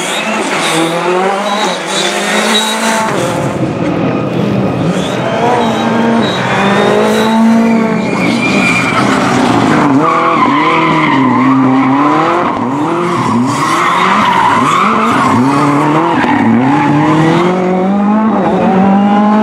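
Ford Fiesta rally cars' engines revving hard through tight corners. The pitch rises and drops quickly again and again with each gear change and throttle lift. A high tyre squeal runs over the engine in places.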